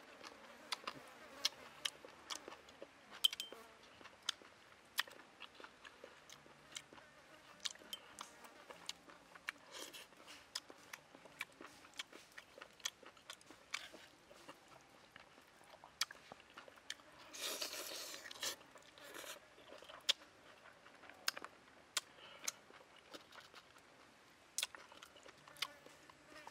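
A person eating fried noodles with chopsticks: close-up chewing and mouth sounds with frequent short, sharp clicks throughout. A louder, rushing sound lasting about a second comes partway through.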